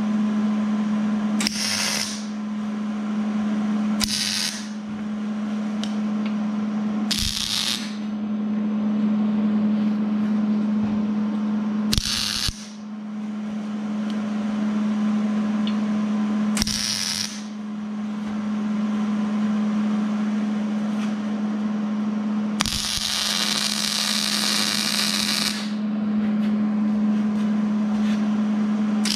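Arc welder tack-welding a steel pipe to a base plate: five short bursts of arc crackle, each about half a second, then a longer weld of about three seconds near the end. A steady low hum runs underneath throughout.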